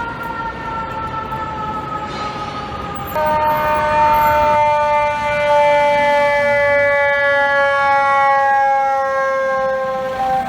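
A fire truck's mechanical siren slowly winding down, its wail falling gradually in pitch. About three seconds in, a louder, lower wail cuts in and keeps falling slowly.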